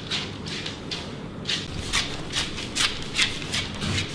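Small dogs moving and playing on a wooden floor, making a run of quick, short, irregular sounds at about three a second.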